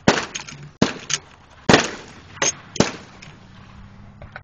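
Gunshots from firearms on a shooting range: about six sharp reports in under three seconds at uneven spacing and differing loudness, as from more than one shooter, then a lull near the end.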